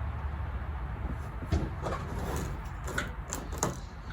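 A few sharp knocks and clicks, spread over the second half, from parts being handled during work inside a car's interior, over a steady low hum.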